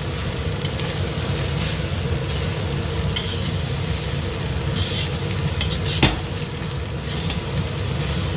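Fried rice being stir-fried in a wok: a metal spatula scrapes and turns the rice over a steady sizzle, with short clinks of spatula against wok. The loudest knock comes about six seconds in.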